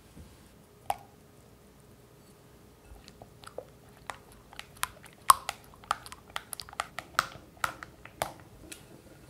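Red silicone spatula stirring thick cream cheese batter in a glass bowl: a run of wet clicks and taps against the glass, several a second, loudest in the second half. A single knock sounds about a second in.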